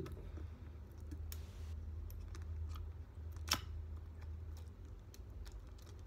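Light, scattered clicks and taps of hands handling a phone's small parts and tools on a repair bench, with one sharper click about three and a half seconds in, over a steady low hum.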